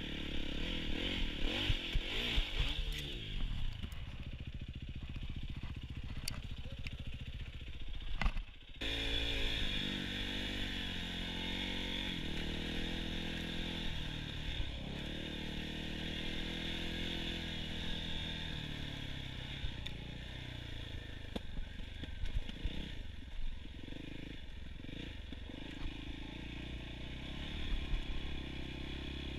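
Dirt bike engine running under way, its pitch rising and falling with throttle and gear changes as it is ridden off-road. The sound breaks off briefly about nine seconds in and resumes.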